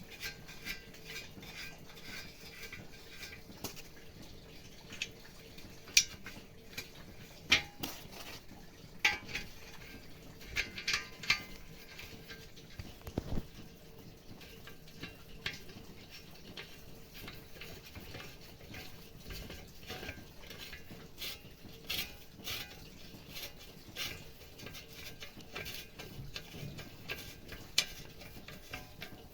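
Metal tools and small parts clinking and knocking as they are handled, in scattered irregular taps and clanks, several sharper ones between about six and twelve seconds in.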